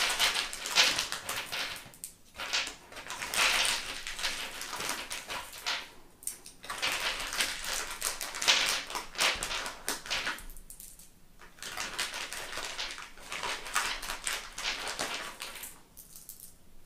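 A plastic zip-lock bag crinkling and small .43-calibre aluminium balls clicking together as a hand picks them out of the bag. It comes in several bursts with short pauses.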